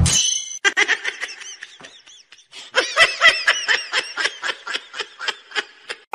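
A person laughing in runs of short, high-pitched bursts. A brief giggle comes first, then a longer, louder bout about three seconds in that fades away.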